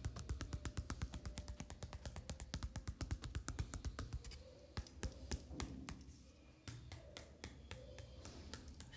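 Hands tapping in a massage, about five quick, sharp taps a second, thinning to slower, scattered taps after about four seconds.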